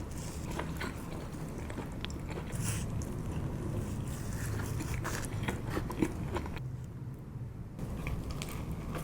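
Someone biting into and chewing a slice of pepperoni pizza, with irregular crunches and wet chewing sounds over a steady low room hum.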